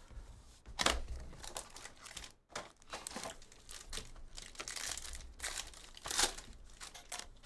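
Plastic wrapping on sports-card packaging crinkling and tearing as a sealed box of trading cards is opened, in several separate rustling bursts.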